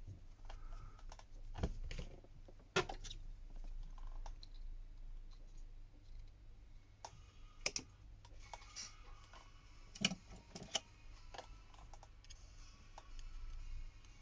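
Scattered sharp clicks and taps of small tools and parts being handled inside an opened smartphone, with light scraping in the second half; the loudest click comes a little before the middle.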